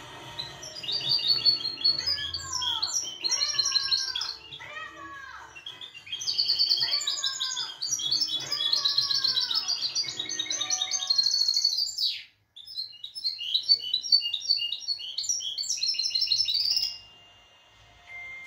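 Small songbird in a cloth-covered cage singing a rapid, high twittering song mixed with falling whistled notes, in three long phrases; it breaks off briefly about halfway through and stops about a second and a half before the end.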